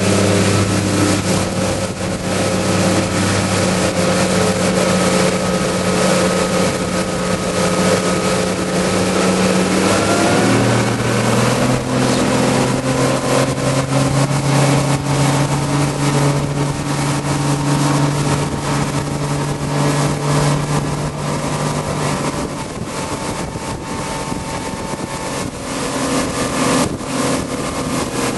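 Mercury Verado four-stroke outboard running hard, heard from aboard the boat over the rush of water and wind. Its note rises about ten seconds in as engine speed picks up, then holds steady.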